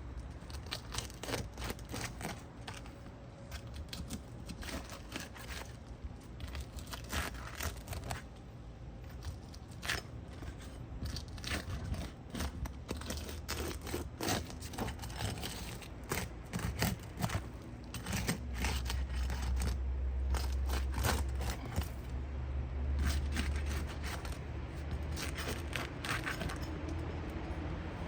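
Irregular scraping and clicking of a roof snake being worked under asphalt shingles to free and pull the roofing nails, tool and shingle grit rasping against each other. A low steady rumble joins in for the last third.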